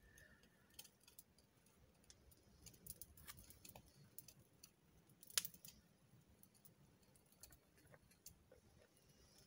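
Faint taps and clicks of a hammerstone striking a flint nodule during flint knapping, spaced irregularly, with one sharper, louder click about five and a half seconds in.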